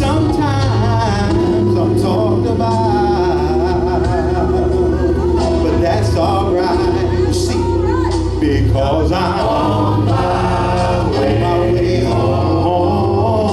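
Gospel song sung with wavering, drawn-out vocal runs and vibrato over sustained low accompaniment.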